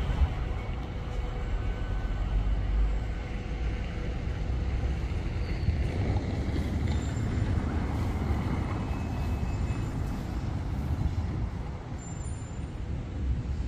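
City street traffic noise with a steady low rumble, and a vehicle passing, louder from about six to ten seconds in.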